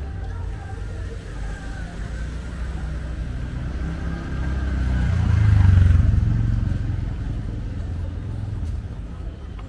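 A motor vehicle passes close by on a busy street. Its low engine rumble swells to a peak about six seconds in and then fades, over steady traffic noise and voices.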